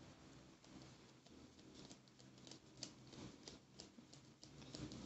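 Faint hand shuffling of a tarot deck: soft, irregular clicks and slaps of cards sliding and tapping against each other, over a faint low hum.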